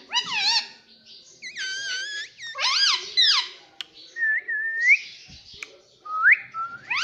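Pet ringneck parrot giving a string of whistles and harsh calls, each a short note that bends up and down in pitch, with several rising whistles in the second half.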